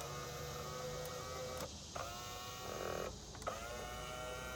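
2006 Hyundai Santa Fe's driver's side power mirror motor whirring in three runs with short pauses between them.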